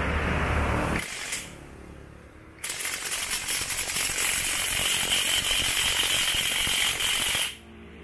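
Brushless 20 V cordless 1/2-inch impact wrench (158VF type, rated 530 Nm) hammering on a car wheel's lug nut to loosen it. It runs loud, with a rapid rattling hammer, for about five seconds from about two and a half seconds in, then stops abruptly. In the first second a different steady noise runs and cuts off.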